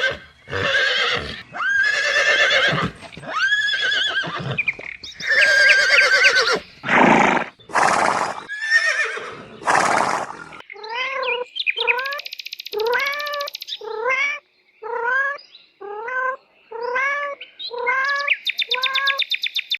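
Farm animal calls: a series of loud, pitched cries, some breathy, for about the first half, then about ten short, arched calls repeated roughly once a second.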